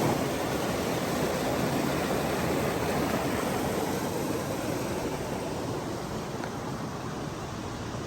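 Steady rushing of creek water, slowly getting a little quieter.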